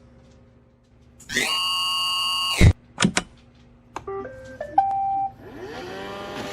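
Robot vacuum cleaner sounding off: a buzzy tone for over a second, two clicks, then a short run of electronic beeps stepping up in pitch and ending on a held beep. Near the end a whir rises as its motor spins up.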